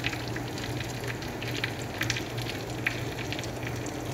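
Marinated chicken pieces sizzling in a black pan, with scattered crackles and pops, over a steady low hum.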